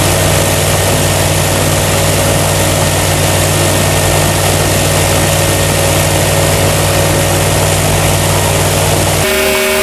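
Loud, steady rush of air from a powerful wind-test fan blowing on an air tent, with a low steady motor hum underneath. The sound changes abruptly near the end, the low hum giving way to a higher steady tone.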